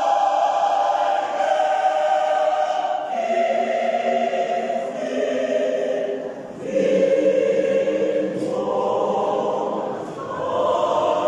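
Mixed gospel church choir of women's and men's voices singing in harmony, holding long chords that change every second or two.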